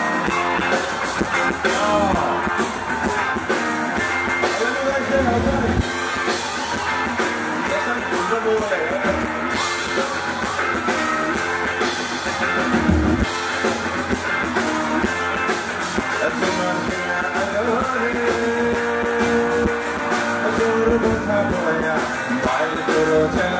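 Live amplified band music, with guitar and drums under a man singing into a microphone.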